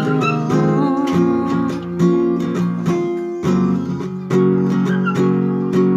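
Acoustic guitar strumming sustained chords, the instrumental accompaniment of a slow worship song, with no singing.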